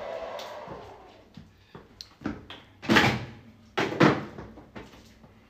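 A few light clicks and knocks, with two louder thuds about three and four seconds in.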